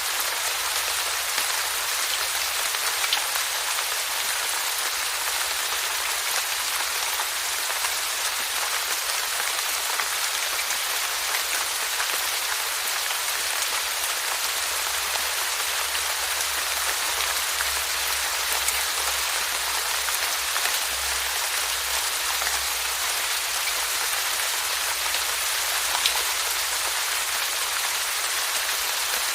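Steady rainfall: an even hiss of rain on a surface, with a few sharper drop ticks standing out here and there.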